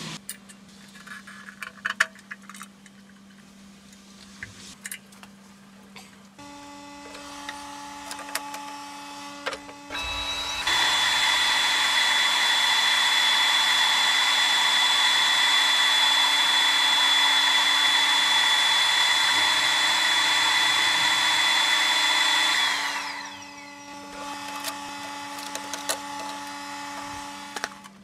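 A workshop machine: a few clicks and knocks, then a steady hum comes on. A loud, even whining run with a high steady tone follows for about twelve seconds and winds down with a falling pitch, while the hum carries on after it.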